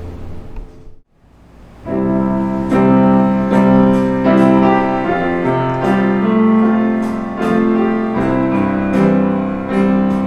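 Piano playing a slow, chordal introduction to a worship song, coming in about two seconds in after a held low chord fades away.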